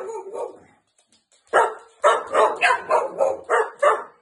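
Staffordshire bull terrier barking: one bark trailing off, a pause of about a second, then a quick run of short, sharp barks at about three a second.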